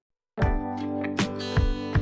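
Background music: after a moment of silence, a guitar-led track with a steady beat starts about a third of a second in.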